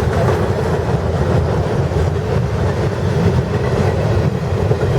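A CSX intermodal freight train passing at speed close by: a steady, loud rumble of steel wheels on the rails.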